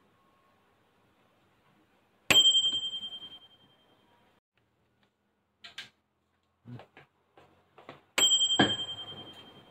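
Microwave oven timer bell dinging twice, about six seconds apart: each a single struck ding with a clear high ring that fades over a second or so. A few small clicks and knocks come between the dings, and a dull thump follows just after the second.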